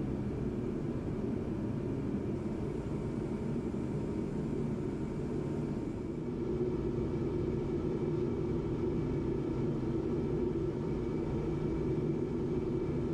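Forced-air shop heater running: a steady rushing noise with a low rumble and faint hum, a little louder about halfway through.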